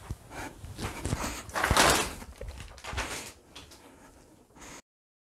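Someone getting up off a bed and moving away: rustling of bedding and clothes, with creaks and several knocks. It cuts off abruptly to silence near the end.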